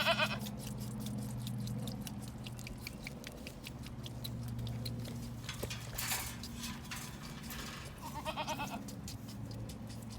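Goats bleating: a short bleat at the start and a wavering bleat about eight seconds in, over a steady low hum and scattered light clicks.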